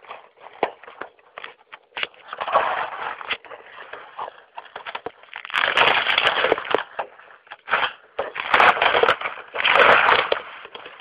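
Packing material around an iMac G3 being pulled and handled: irregular rustling, crackling and crunching with scattered clicks, loudest in two long bursts in the second half.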